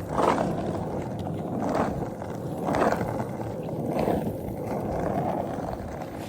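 Skateboard wheels rolling on an icy, wet road surface, with a swell in the rumble roughly every second as the board is pushed along.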